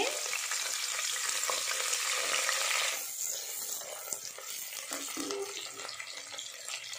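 Chopped onion and green coriander sizzling as they hit hot oil in a pressure cooker: a loud sizzle for the first three seconds, then settling to a quieter, steady frying sizzle.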